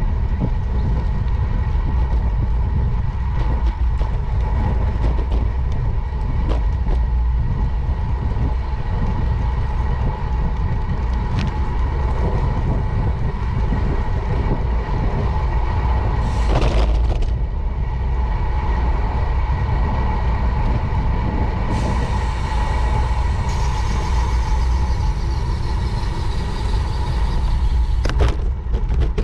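Riding noise picked up by a camera on a moving bicycle: a steady low rumble of tyres on asphalt and wind buffeting the microphone, with a faint steady hum above it. A brief hiss comes partway through.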